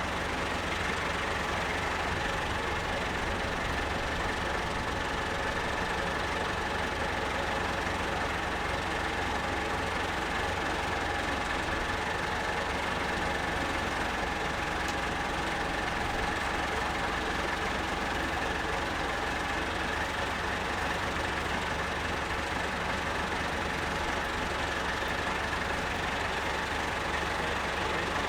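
Tractor engine idling steadily at a constant speed.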